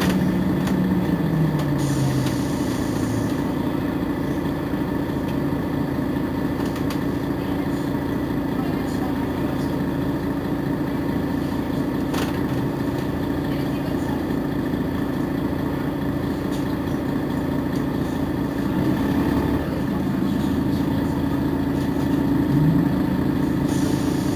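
Mercedes-Benz Citaro G C2 articulated bus idling at a stop, its engine running with a steady hum. A lower tone falls in pitch over the first few seconds and rises again near the end.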